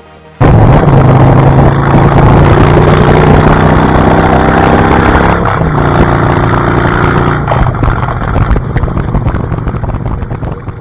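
A loud engine running with a steady low pitch. It cuts in suddenly about half a second in and fades out near the end.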